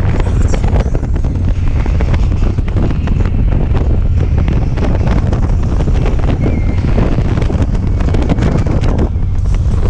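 Wind buffeting the microphone over the steady low rumble of a Harley-Davidson touring motorcycle's V-twin engine cruising at highway speed. The wind hiss eases briefly near the end.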